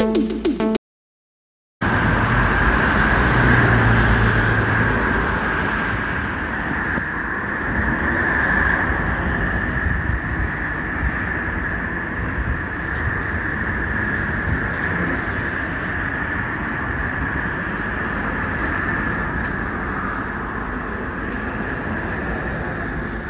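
A music jingle cuts off within the first second, then about a second of silence. A steady outdoor background of road-traffic noise follows, with a constant high-pitched whine running through it.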